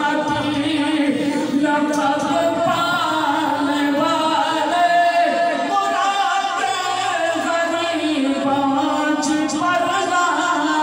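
A man's unaccompanied voice chanting devotional verse in a melodic, sung style, with long held notes, amplified through a microphone.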